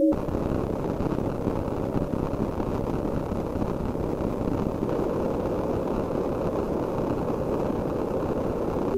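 Synthesized electronic sound from a Kyma piece: a dense, grainy rumble of noise, strongest in the low and middle range and steady in level. It cuts in suddenly and breaks off abruptly.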